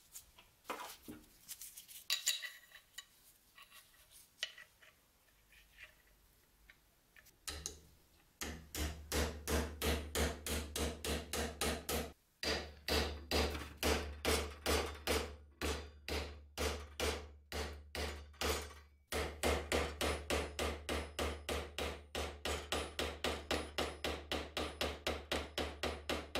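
Small hammer peening the steel pins of a knife's bolster against the anvil of a bench vise. At first there are only a few light handling clicks. From about eight seconds in comes a fast, even run of metal-on-metal strikes, about three a second, each with a low ring from the vise, broken by two short pauses.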